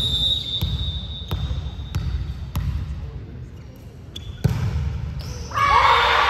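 A volleyball bounced repeatedly on a wooden sports-hall floor, about once every two-thirds of a second, with a referee's whistle blowing once in the first second. About four seconds in there is one sharp, loud hit, the ball being served, and near the end loud shouting from players and spectators starts.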